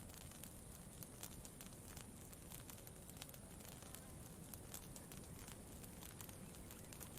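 Campfire crackling faintly, with frequent irregular small pops and snaps over a low steady background noise.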